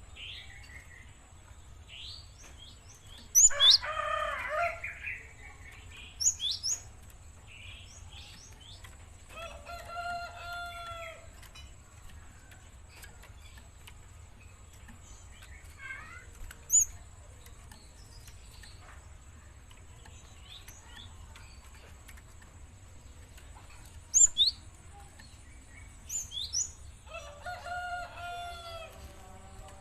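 Young Java sparrow calling with short, sharp, high chirps at irregular intervals, loudest about three and a half and twenty-four seconds in. A rooster crows in the background several times, around four, ten and twenty-eight seconds in.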